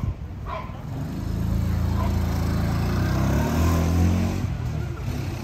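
A motor vehicle's engine passing close by. Its low hum builds from about a second in, is loudest about four seconds in, then fades.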